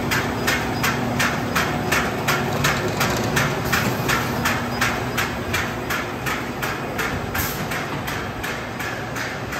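Plastic glove-making machine running, with an even, rhythmic clack about three times a second over a steady machine hum.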